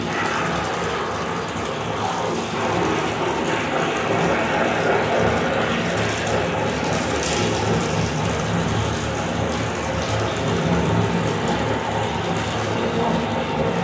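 High-pressure drain-jetting machine running steadily, water spraying hard inside a drain pipe, with a rough mechanical drone under the hiss of the spray.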